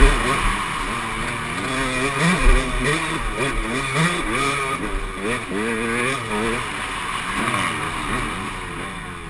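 Dirt bike engine heard from the handlebars while riding, revving up and falling back over and over through the gears. There are a couple of heavy low thumps early on, and the engine eases off near the end.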